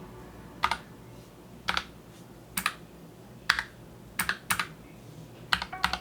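Separate key presses on a NuPhy Air75 low-profile mechanical keyboard: about eight single clicks, spaced irregularly, some close together in pairs.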